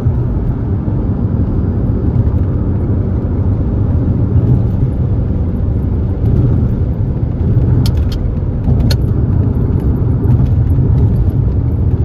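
Alfa Romeo car on the move: a steady low rumble of engine and road noise, with a few light clicks about eight seconds in.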